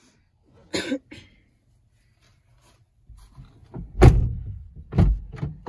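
A few dull thumps around a car's door and back seat, the two loudest a second apart, over a low rumble. A short, sharper noise comes about a second in.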